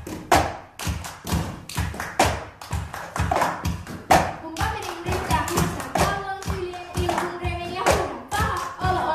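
Cup-song rhythm: plastic cups thumped and tapped on a wooden floor, with hand claps, in a quick steady beat. Voices come in singing in Finnish about halfway through.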